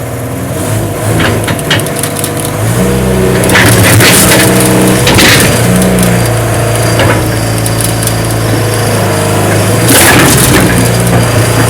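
A crane's engine running, its pitch stepping up under load about three seconds in, while a lawn mower is crushed: repeated cracking and crunching, loudest around four, five and ten seconds in.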